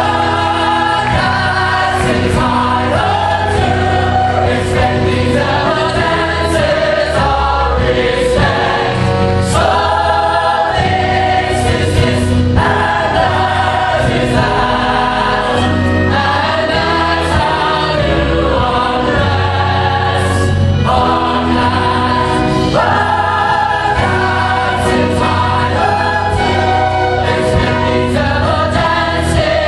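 A large stage-musical cast singing together in chorus over instrumental accompaniment with a steady bass line.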